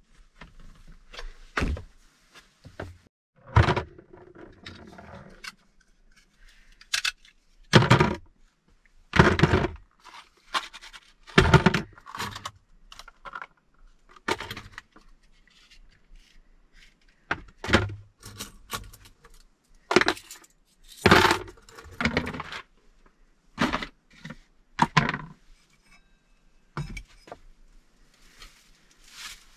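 Small objects being handled and set down on a wooden plank shelf: irregular clinks and knocks of glass and plastic on wood, about one every second or so, with a longer scrape about four seconds in.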